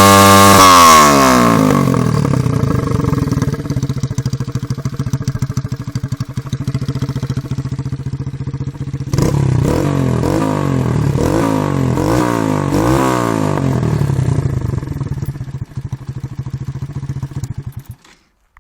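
Barton Volcano 125cc motorcycle engine idling and being revved: a rev dying away at the start, a steady idle, then about four quick throttle blips in a row, back to idle, before the sound cuts off near the end.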